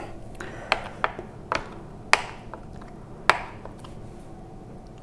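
Kitchen knife cutting a block of tofu into small cubes, the blade coming down on the cutting board in about six irregular, sharp taps.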